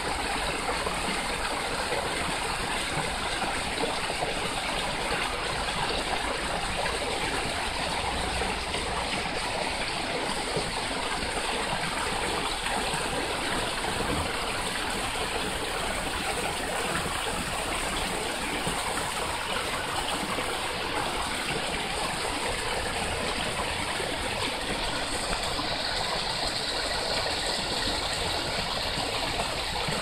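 Small waterfall spilling down stepped bedrock ledges into a creek pool: a steady rush of falling water.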